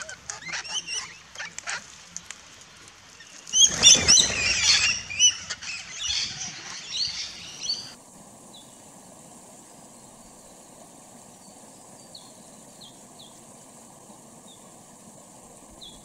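Parrots at a feeder, mostly rainbow lorikeets with king parrots, screeching and chattering, with a loud flurry of calls and wing flaps about four seconds in. The calls stop abruptly about eight seconds in, leaving a steady soft hiss with a few faint, short bird chirps.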